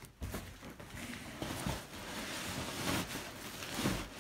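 Thin clear plastic bag crinkling and rustling as it is handled and tugged at to get it open.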